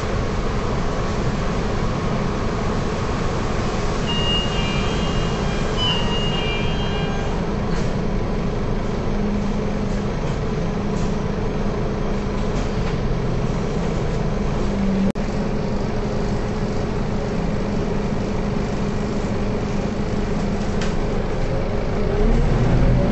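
Scania K230UB bus's rear-mounted diesel engine idling steadily, heard from inside the passenger cabin, with a few short electronic beeps about five seconds in. Near the end the engine revs up, rising in pitch, as the bus pulls away.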